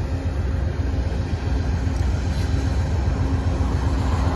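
Amtrak diesel passenger locomotives idling at a standstill: a steady low rumble with a faint steady hum. Near the end a car approaches on the road.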